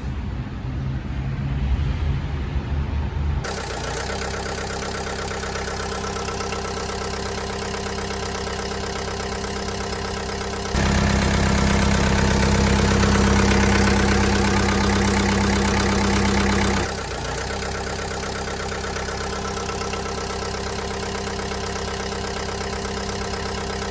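Deutz diesel engine running after a timing belt replacement, steady at idle with a louder, faster stretch of about six seconds in the middle before it drops back.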